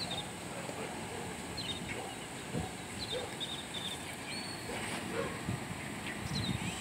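Faint animal calls: scattered short high chirps, with a few fainter, lower short calls in between.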